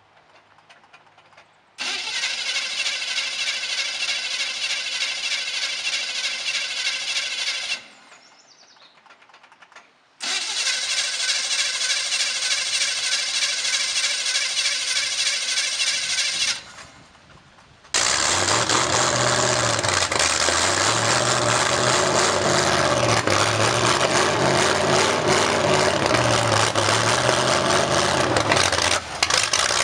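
Derby pickup truck's engine being cranked after sitting for a year. Two long cranking attempts of about six seconds each fail to start it, with pauses between them; on the third try, about eighteen seconds in, the engine catches. It then runs through open exhaust stacks, revving up and down.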